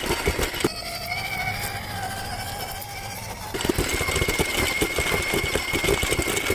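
Small electric RC trail truck driving slowly over gravel while towing a trailer: a dense rapid crackle of tires rolling over the stones, with a thin, steady motor whine. The crackle drops away about a second in and returns halfway through.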